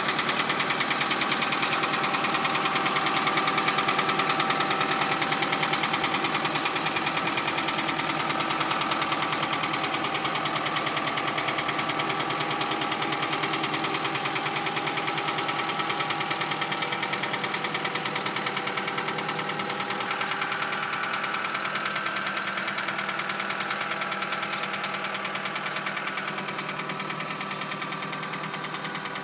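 Caterpillar 943 diesel engine running steadily with a fast, even chugging, easing slightly quieter near the end.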